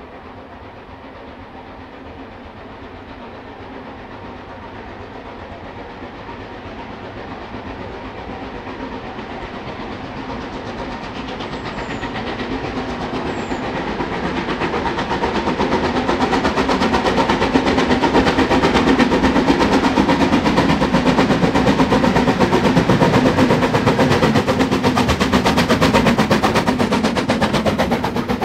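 Metre-gauge steam train approaching, its fast, even rhythm growing steadily louder for about seventeen seconds, then holding loud and steady as it runs close by.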